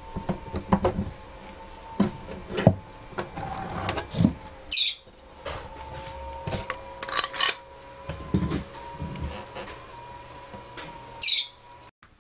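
A screw-clamp fret press being worked on a Martin D-28 acoustic guitar as new frets are pressed into the fretboard: scattered knocks and clicks of the clamp and its screw against the guitar. Two short, high scrapes come about five and eleven seconds in.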